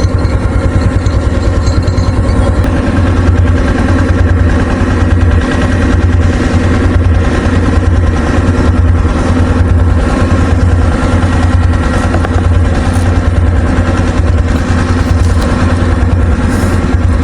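An engine running steadily at a constant speed, with a loud, deep hum.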